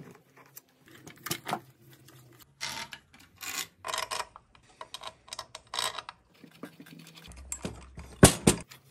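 Small irregular clicks, taps and brief scrapes of metal tools and steel case bolts handled against a cast aluminium engine case as the bolts are set into their holes, with a sharp knock near the end.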